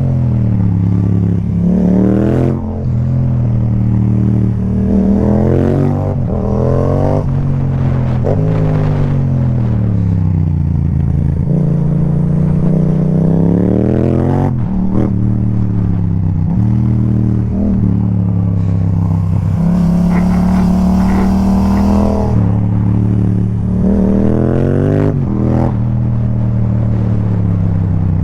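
Yamaha MT-07's parallel-twin engine through an Akrapovic exhaust with no dB killer, pulling hard through the gears: the pitch climbs and then drops sharply at each shift, several times over, with a stretch of easing off and a short steady run in between.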